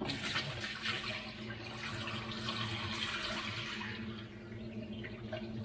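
Water running into a kitchen sink, a steady splashing stream that starts abruptly and eases off near the end.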